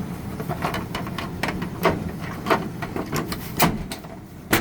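Aprilaire humidifier cover being fitted back on: a run of irregular clicks and knocks as it is handled and snapped into place, the sharpest knock near the end.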